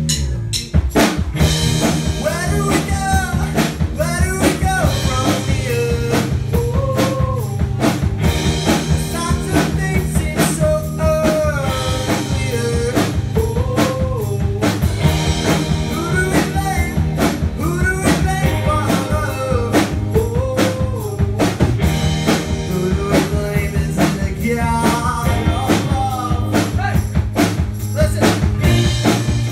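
A rock band playing live through a PA: electric guitars and a drum kit keeping a steady beat, with a singer's voice over them from about two seconds in.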